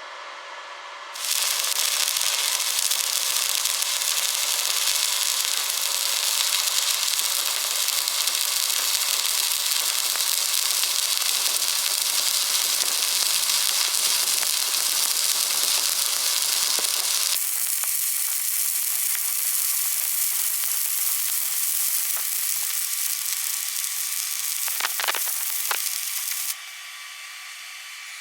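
Stick (arc) welding arc burning steadily. It strikes about a second in and breaks off shortly before the end.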